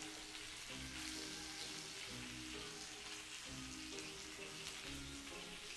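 Salmon fillets frying in hot oil in a skillet: a steady sizzle and spatter. Background music plays over it.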